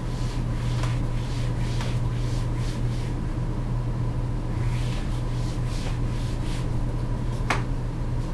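Steady low electrical hum and hiss of room tone, with a thin high tone above it. A few faint ticks come in the first few seconds, and a sharper click about seven and a half seconds in.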